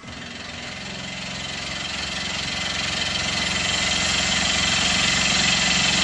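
Tormach CNC mill spindle spinning a carbide-tipped fly cutter that is facing a 6061 aluminum plate with a light cut: a steady machine hum with a dense high hiss of cutting, growing steadily louder.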